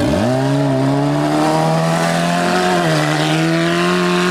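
Off-road racing vehicle's engine revving up sharply, then held at high revs under load, with a brief dip in revs about three seconds in.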